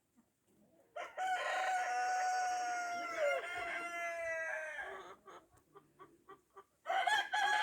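A rooster crowing: one long crow lasting about four seconds that falls slightly at the end, a few faint ticks, then a second crow starting near the end.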